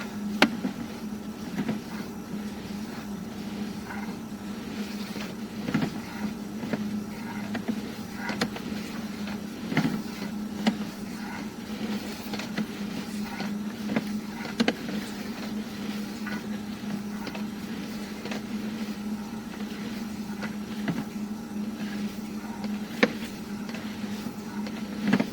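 Steady low mechanical hum with scattered sharp clicks and knocks from a sewer inspection camera rig as its push cable is fed down the line.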